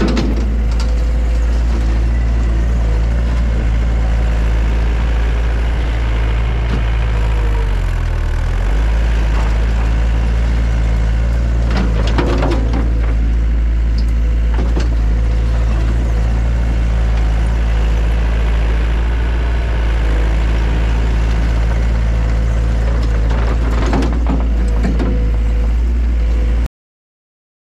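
Gehl CTL60 compact track loader's engine running steadily, briefly dropping in pitch about eight seconds in, with a few clanks about twelve seconds in and again near the end. The sound then cuts off suddenly.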